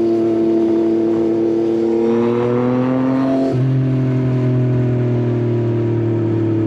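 Yamaha XSR900 inline-three with an Akrapovič exhaust under way. The engine note climbs as it accelerates, drops sharply on an upshift about three and a half seconds in, then holds steady and slowly rises again.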